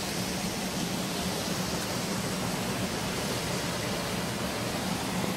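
Steady rushing of a small waterfall spilling over rocks into a pool.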